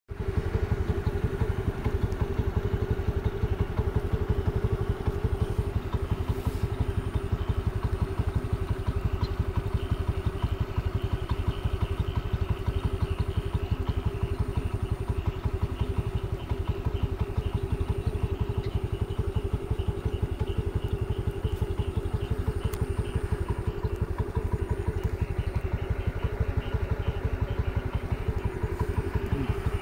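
Engine of a moving vehicle running steadily at an even speed, heard from on board.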